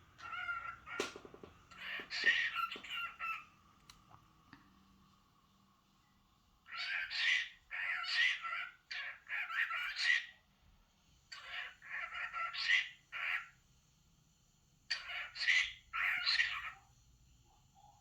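Pet cockatiel vocalizing in short chattering bursts, groups of a second or two with pauses of a few seconds between them.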